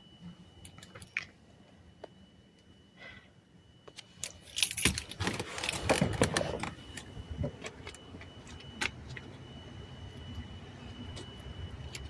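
Small metal objects jangling and clicking: a few scattered clicks, then a dense rattling for about two seconds near the middle. A faint steady high tone runs underneath.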